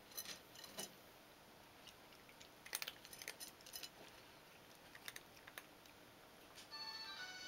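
Two cats eating from a bowl: faint, scattered sharp crunches and clicks of feeding, a few close together about three seconds in. Background music comes in near the end.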